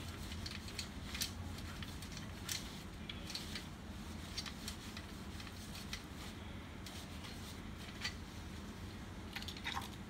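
Scattered small plastic clicks and taps from a laser printer's fuser assembly being handled and taken apart, over a steady low hum.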